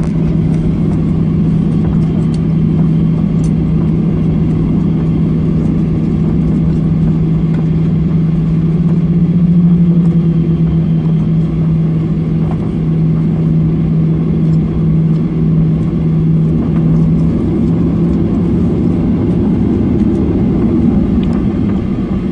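Boeing 737-800 jet engines at takeoff thrust, heard from inside the passenger cabin during the takeoff and initial climb: a loud, steady drone with a strong low hum, swelling slightly about ten seconds in.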